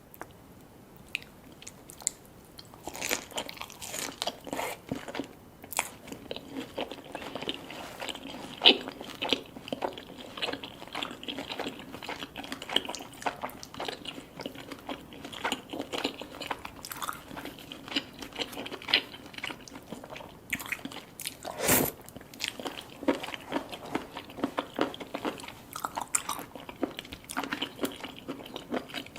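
Close-miked eating: repeated bites and chewing with crunching, a dense run of irregular wet clicks that starts about three seconds in. One louder smack comes near two-thirds of the way through.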